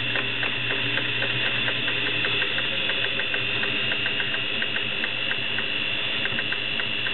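Singer 401A Slant-O-Matic sewing machine sewing a straight stitch: the motor runs at a steady speed with a whine, and the needle mechanism taps at about four stitches a second.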